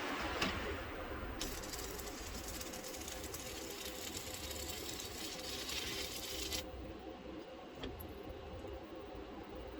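Welding arc hissing for about five seconds, starting and cutting off abruptly, with a few short clicks before and after.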